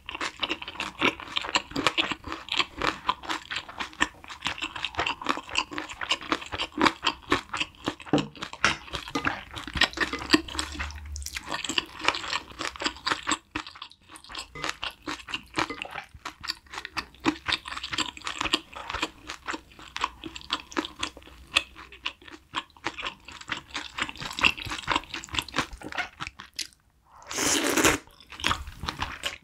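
Close-miked eating sounds: wet chewing and smacking of spicy braised chicken and glass noodles, with many quick clicks. Near the end comes a louder burst of slurping as a spoonful of glass noodles goes into the mouth.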